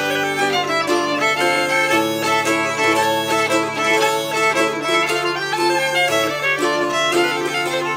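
Instrumental English country dance tune, with a fiddle playing a quick melody over a steady low held note.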